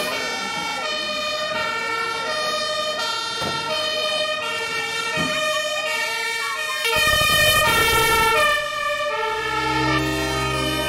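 German fire engine's two-tone siren sounding, alternating high and low about every half second. About seven seconds in, a loud rushing burst lasts about a second and a half.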